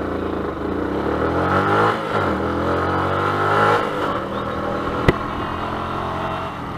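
Yamaha YZF-R125's single-cylinder 125cc four-stroke engine accelerating: the revs climb and drop twice as it shifts up through the gears, then hold steady. A sharp click about five seconds in.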